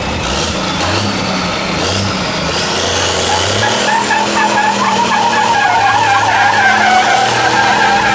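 Diesel semi-truck tractor revving with a rising whine, then its rear drive tyres squealing and spinning in a burnout from about four seconds in, growing slightly louder.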